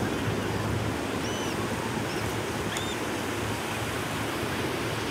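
Ocean surf washing onto a sandy beach: a steady rush of breaking waves.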